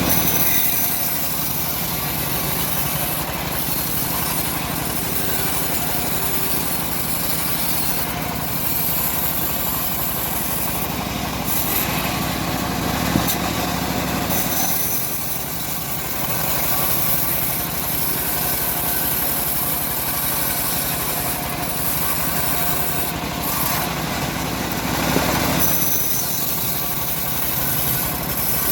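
Homemade engine-driven bandsaw running steadily while its blade cuts through a teak log, an engine drone under a constant sawing hiss.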